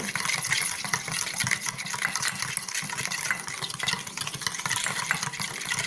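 A metal spoon beating coffee powder, sugar and hot water in a stainless steel bowl, with a rapid wet swishing and clinking against the bowl as the mixture is whipped toward dalgona cream.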